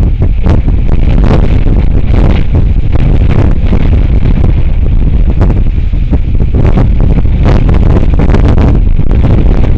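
Strong wind buffeting the microphone, loud and heavy, with repeated gusts surging through it.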